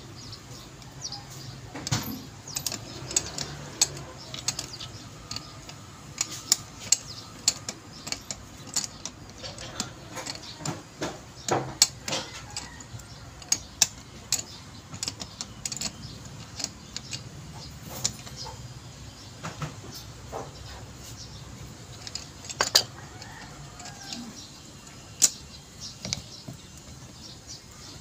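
Hand tools clicking and clinking on the metal of a power steering gearbox as pliers and a screwdriver work at it: many short, irregular metallic clicks.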